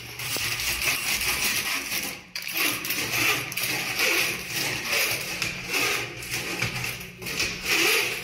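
Hand-cranked RIDGID closet auger working down a clogged toilet: its cable rattles and scrapes in the porcelain trap while the bowl water churns. It goes in uneven pulses, with short pauses about two and seven seconds in.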